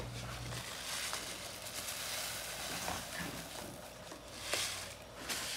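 Spinach seeds poured from a paper bag into a plastic seeder hopper: a faint pattering and rustle, a little louder a few seconds in. A low hum cuts off about half a second in.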